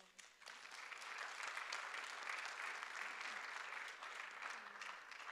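Audience applauding, building up within the first half-second and fading away near the end.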